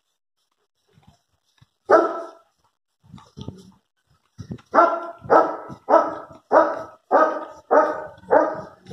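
A dog barking: a single bark about two seconds in, then a steady run of barks about every 0.6 seconds through the second half.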